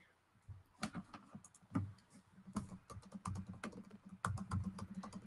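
Typing on a computer keyboard: irregular key clicks, a few at first and then quicker runs from about halfway, over a faint low hum.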